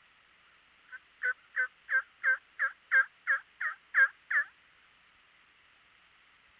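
A run of about eleven turkey yelps, evenly spaced at about three a second. The first is faint, the rest are loud, and they stop about four and a half seconds in, over a faint steady hiss.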